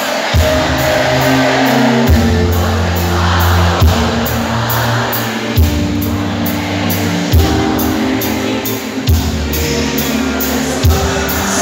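Live pop-folk band music heard from the audience in a large sports hall. Deep bass notes change about every second and three-quarters, with a drum accent on each change.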